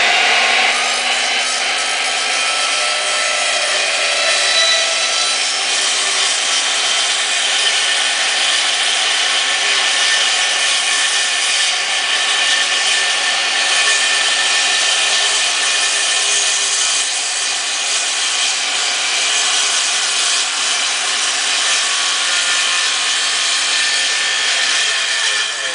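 Handheld circular saw (skill saw) cutting thin wood paneling, its blade set just deeper than the panel. The motor spins up at the start, runs steadily under load through the long cut, and begins to wind down near the end.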